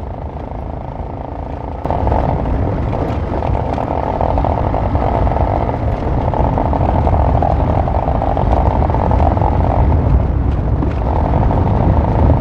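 Wind rushing over the microphone of a moving motorcycle, with engine and tyre noise on a dirt road beneath it; it gets louder about two seconds in.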